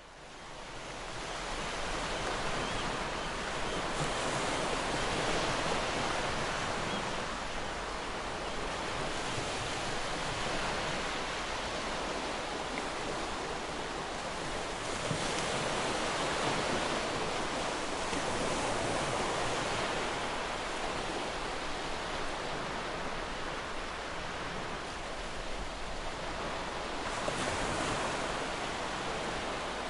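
Ocean waves washing ashore as a continuous rush of surf, swelling and ebbing slowly. It fades up over the first couple of seconds.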